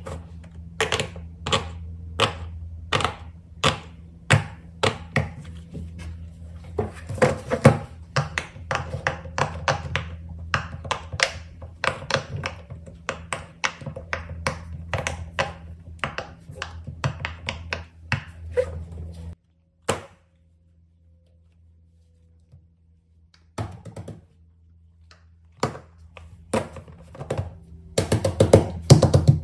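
Fidget toys being handled, tapped and set down: a fast, irregular run of clicks and knocks over a low hum. It breaks off abruptly about two-thirds of the way through, and after a short quiet gap resumes more sparsely, growing busier near the end.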